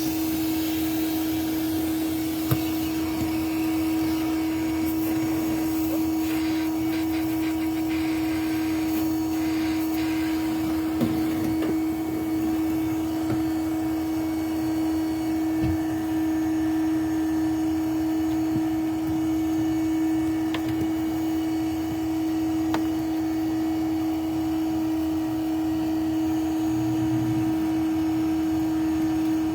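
A bee vacuum's motor runs with a steady, even hum during a live hive removal, with a few faint knocks.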